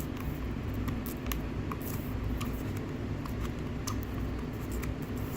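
Light, irregular clicks and scratches of fingernails picking at the top of a new kettle to pry off its protective film, over a steady low hum.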